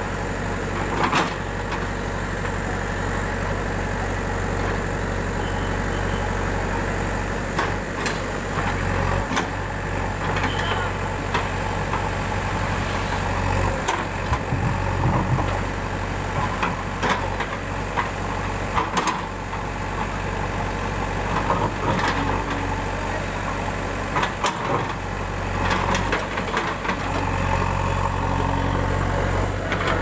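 JCB 3DX backhoe loader's diesel engine running steadily while its backhoe bucket digs through mud and broken brick and concrete, with irregular knocks and scrapes from the bucket against the rubble.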